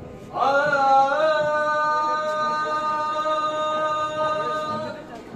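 A male qawwali singer holds one long sung note for about four and a half seconds. The note slides up slightly at the start, then stays steady.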